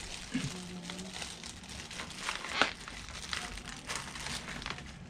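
Packaging crinkling as it is handled, with scattered light clicks and taps; one sharper click about two and a half seconds in.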